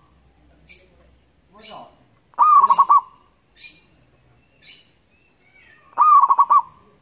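Zebra dove (perkutut) of a local strain cooing loudly: two phrases about three and a half seconds apart, each a drawn note followed by a quick run of three or four pulses. Faint short high chirps come between the phrases.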